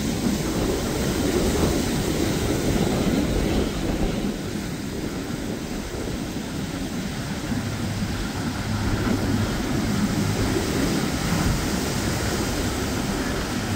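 Engines of a large sportfishing yacht running at speed: a steady rumble mixed with rushing wind and water. A low steady hum comes in about halfway through.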